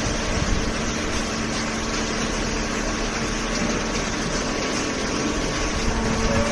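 Hydraulic cardboard baler's power unit running: a steady motor-and-pump hum with a few constant tones over a noisy whir.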